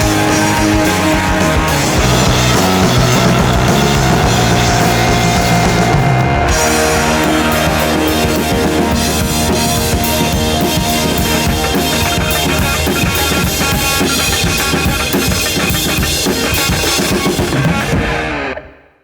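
Instrumental rock music with drums and guitar, fading out to silence near the end.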